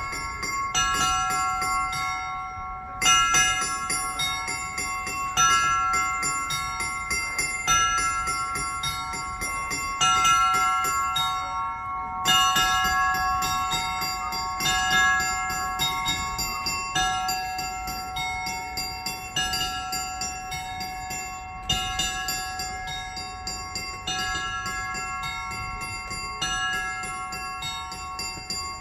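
Russian Orthodox church bells ringing in a festive peal: small bells struck in quick repeated patterns over steady ringing tones, with a louder stroke every two seconds or so.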